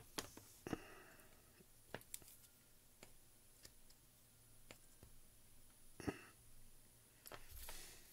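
Near-silent room with scattered small clicks and taps as a soldering iron and a small circuit board are handled while IC socket pins are soldered, and a couple of short soft hisses, one about a second in and one around six seconds.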